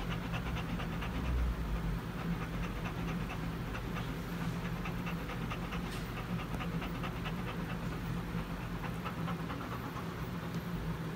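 Golden retriever panting rapidly and evenly, close to the microphone, over a steady low hum.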